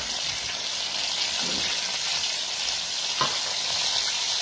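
Flour-coated cauliflower florets deep-frying in hot oil in an electric deep fat fryer: a steady sizzle, with a couple of faint pops. The coating is mid-fry, already crisp but not yet golden.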